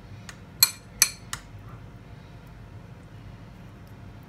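A spoon clinking against a baking tray four times in quick succession within the first second and a half, the middle two sharpest, as stuffing is spooned into potato cups.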